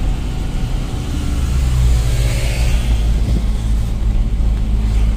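Truck engine and road noise heard from inside the cab while driving, a steady low drone.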